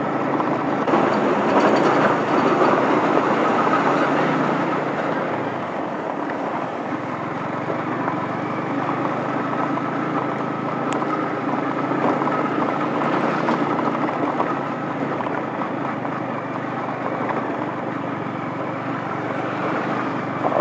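Yamaha MT-15's single-cylinder engine running steadily on a rough gravel road, mixed with wind and tyre noise. The noise is a little louder over the first few seconds while a lorry passes close alongside.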